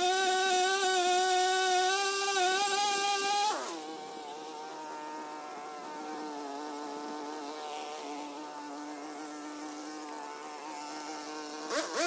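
Stihl pole pruner's motor running at full speed. About three and a half seconds in it drops in pitch to a quieter, lower-speed run, and it speeds up sharply again near the end.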